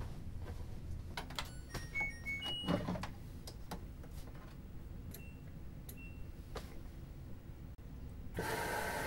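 LG front-loading washing machine being set going: clicks and knocks from the door and dial, then several short electronic beeps from its control panel as the buttons are pressed. Near the end a steady humming, whirring noise comes in abruptly.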